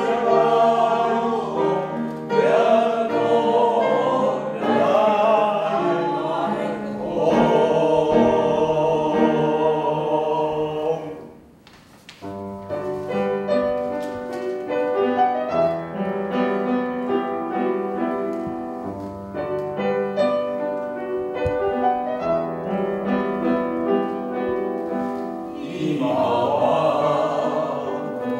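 Small mixed vocal ensemble of men's voices and a soprano singing a lyrical song in bel canto style with upright piano accompaniment. About eleven seconds in the sound drops away briefly, then the piano leads with separate clear notes before full singing returns near the end.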